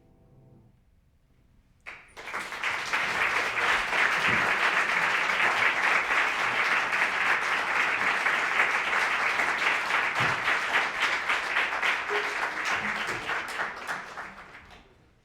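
The last held note of the ensemble dies away, then about two seconds in a concert audience breaks into applause, which runs steadily and fades out near the end.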